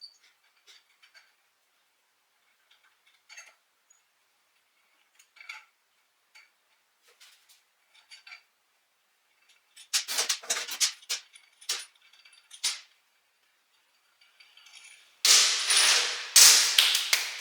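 Hand tools working the wheel bolts of an electric scooter as they are loosened and taken out: scattered faint metal clicks, a run of sharp clinks about ten seconds in, and a louder stretch of metal clattering near the end.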